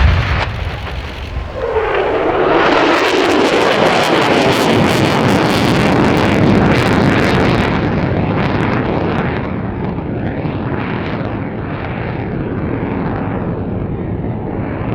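Lockheed Martin F-35A Lightning II's single Pratt & Whitney F135 turbofan roaring as the jet flies past. The roar swells about a second and a half in, stays loudest for several seconds, then eases to a steady, lower rumble.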